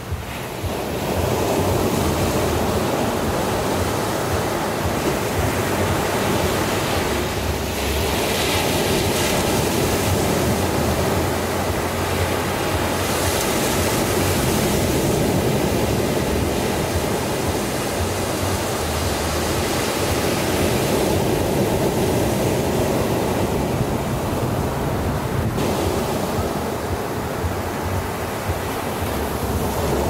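Small ocean waves breaking and washing up a sandy beach: a steady rush of surf that swells and eases slowly.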